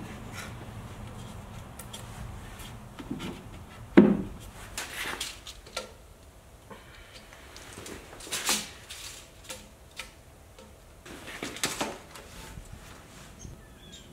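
Wooden beams and boards being handled and set down: a dull wooden knock at the start and a louder one about four seconds in, then several shorter scrapes and rustles.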